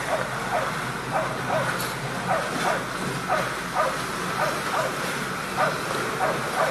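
A dog barking over and over in short yips, about two a second, over the steady low running of a pickup truck engine.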